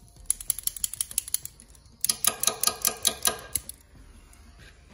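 Small handheld butane torch's igniter clicking rapidly, about eight clicks a second, as it is sparked to light it. There is a first run of clicks, then a louder, denser run from about two seconds in that stops just before the four-second mark.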